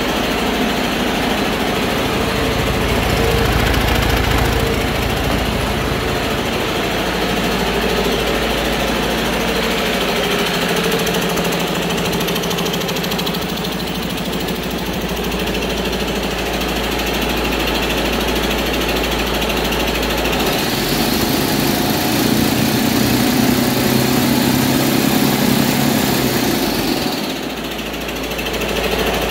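2021 Detroit Diesel DD13 inline-six diesel engine running on a test stand, steady, a good used engine on its test run. Its tone shifts about two-thirds of the way through, and the level dips briefly near the end.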